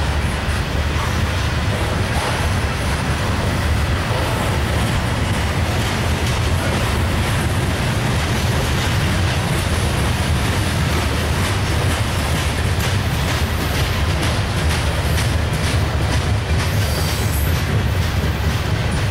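Coal hopper cars of a freight train rolling past: a steady low rumble of steel wheels on rail, with faint wheel clicks.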